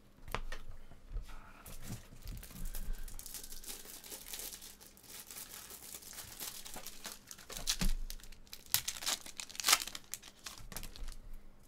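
Foil trading-card pack wrappers being torn open and crinkled by hand, an irregular crackling with sharper tearing bursts about eight and ten seconds in.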